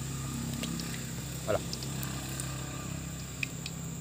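A small engine running steadily with a low hum, and one brief louder sound about a second and a half in.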